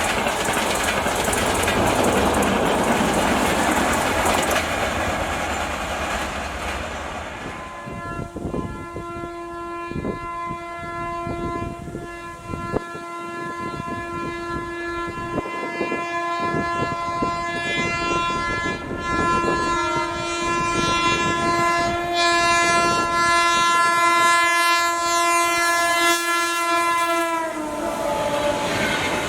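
A passing train runs by, then a locomotive horn sounds one long steady blast of about twenty seconds over the clacking of wheels on rail joints. Near the end the horn's pitch drops as the locomotive passes, and the noise of the running train returns.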